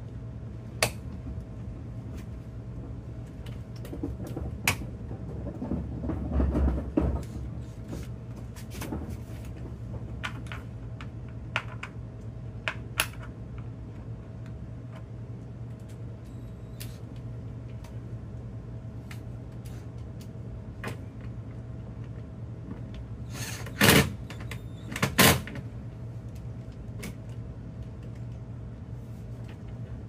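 Scattered clicks and knocks from hands working a pickup's plastic interior door trim panel, with a busier patch of rattling early on and two loud knocks about a second apart late on, over a steady low hum.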